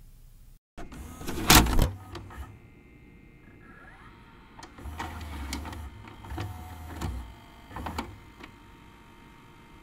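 Sound effects over an end logo: a loud hit about a second and a half in, then a few shorter mechanical whirs and clicks between about five and eight seconds in.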